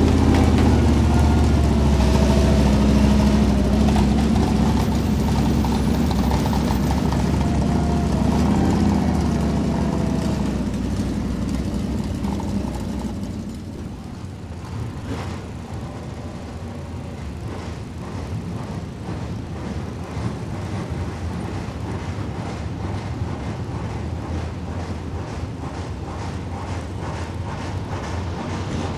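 Dirt late model's 602 crate V8 running close by with a steady low note, then fading as the car moves off about 12 seconds in. After that, race car engines running laps on the dirt track further away.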